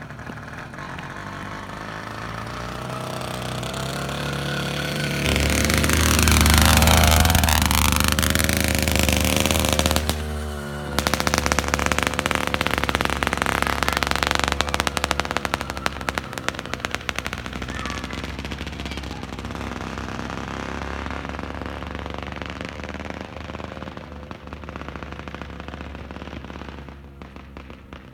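80cc two-stroke engine of a motorized swingbike running as the bike rides up, loudest as it passes close about seven seconds in, its pitch dipping and rising. Just after ten seconds the engine drops off briefly, then picks up with a fast staccato crackle from the exhaust as the bike pulls away, fading near the end.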